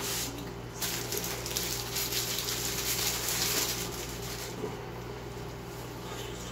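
Paper burger wrapper rustling and crinkling as a burger is unwrapped, for about four seconds, over a steady low hum.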